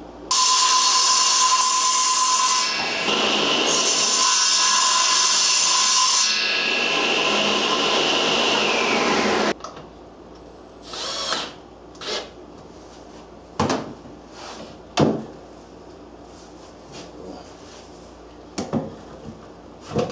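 A power tool running against wood for about nine seconds, with a high whine that shifts in strength and then falls away before it stops suddenly. It is followed by a few light knocks and handling sounds.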